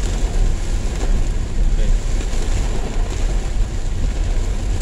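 Steady rumble of a car driving on a wet road in the rain, heard from inside the cabin: engine and tyre noise mixed with rain on the windscreen.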